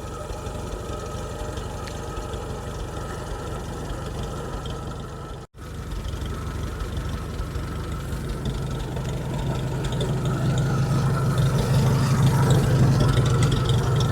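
An engine running steadily at low speed, with a brief dropout about five seconds in; it grows louder over the second half.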